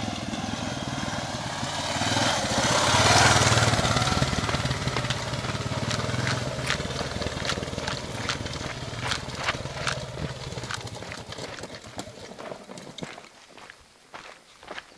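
Dual-sport motorcycle engine growing louder as it comes up the dirt trail, passing close about three seconds in, then fading steadily as it rides away. Sharp crunching clicks from stones and grit continue as the engine dies away.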